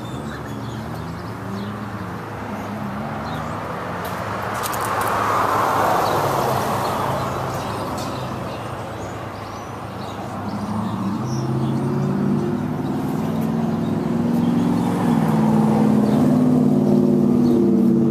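Vehicle noise: a rushing sound swells and fades about five or six seconds in. From about ten seconds in, an engine runs with a low, wavering hum that grows louder.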